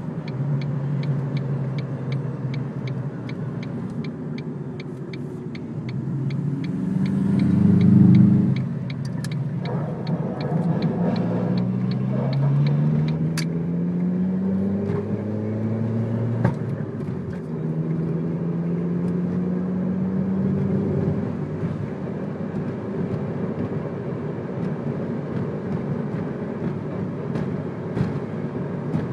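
A 2002 Ford Focus's four-cylinder engine is heard as the car drives, its note climbing several times as it accelerates through the gears. A regular light ticking runs through the first third, and a few sharp knocks come through, fitting the front-suspension clunk that was traced to a bottomed-out driver's-side front coilover.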